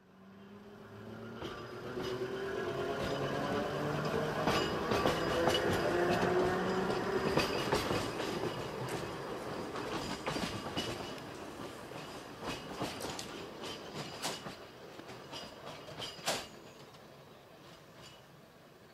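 Narrow-gauge electric tram passing and running away along the track: its motor whine rises in pitch as it gathers speed, with the wheels clicking over the rail joints, loudest as it goes by, then fading as it recedes. A sharp single click stands out near the end.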